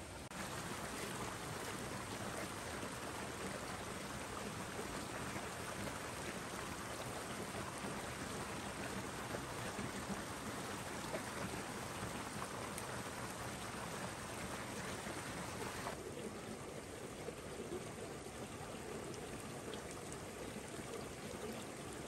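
Shallow forest stream running over rocks: a steady rush of flowing water that changes slightly in tone about three-quarters of the way through.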